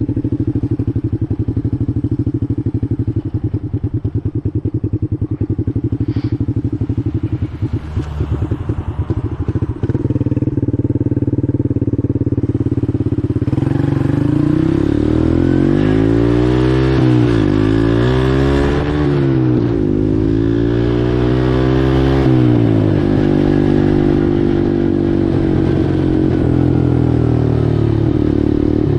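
Four-wheeler (ATV) engine running at a steady pitch, then from about halfway through speeding up and easing off several times, its pitch rising and falling, before it settles at a higher steady pitch.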